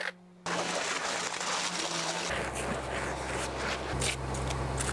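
Concrete pump truck's engine running steadily while concrete is placed on a roof slab, with scraping and knocking from the concrete work over it.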